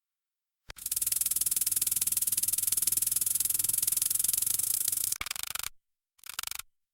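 Grain kernels rattling into a combine harvester's grain intake: a dense, rapid stream of small ticks that starts under a second in, runs about four and a half seconds and cuts off sharply, followed by two short bursts of the same rattle.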